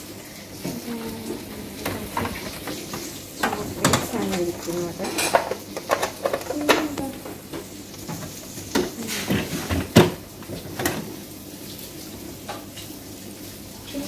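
Plastic packets rustling and crinkling, with irregular knocks and clinks as jars, boxes and containers are picked up and shifted on a fridge shelf; the loudest knock comes about ten seconds in.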